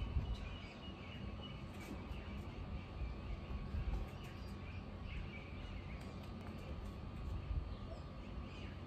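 Outdoor background sound: a steady low rumble, like wind on the microphone, with birds chirping here and there.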